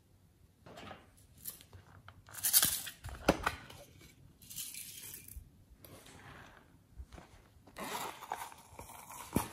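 Small plastic containers handled and opened: irregular clicks, taps and rustling of plastic lids and cases, with a few sharper clicks.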